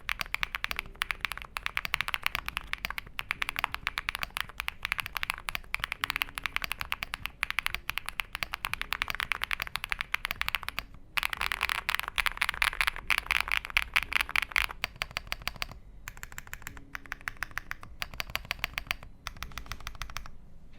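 Fast typing on a Dark Alien R65 mechanical keyboard with Bsun Sea Fog and Haimu Rock tactile switches and thick PBT dye-sub keycaps: a dense run of keystroke clacks. There is a brief pause about eleven seconds in, and the typing turns lighter and sparser near the end.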